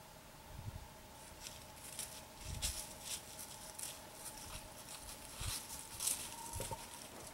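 White-tailed buck stepping through dry fallen leaves: a run of short leaf crunches about a second in until near the end, with a few low thumps.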